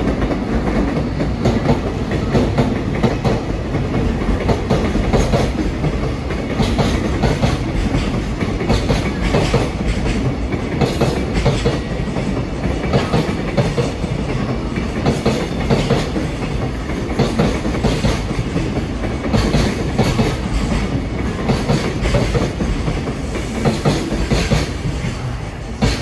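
Container freight train of a DD200 diesel locomotive and Koki container wagons rolling past, a steady rumble with wheels clacking over rail joints.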